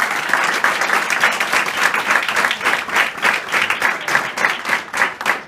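Audience applauding, the dense clapping thinning to scattered separate claps near the end.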